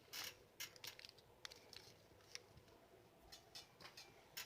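Faint rustles and crackles of a sheet of origami paper being handled and folded, in scattered short bursts.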